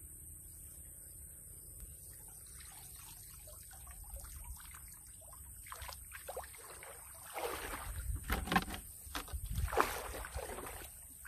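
Shallow water sloshing and splashing as a person wades and gropes in it by hand. Faint and sparse at first, then a run of louder, irregular splashes in the last few seconds as he moves through the water.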